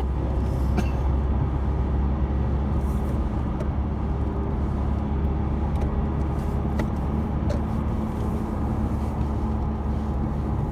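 Steady low rumble of road and engine noise inside a moving car's cabin, with a faint steady hum and a few faint ticks.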